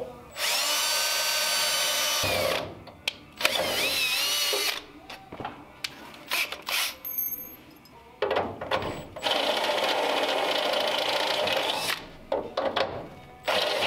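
Cordless drill boring pilot holes in a steel car frame rail. It runs in four bursts of steady motor whine, the longest about three seconds near the end, and the pitch wavers as the bit bites. Quiet clicks and tool handling come between the runs.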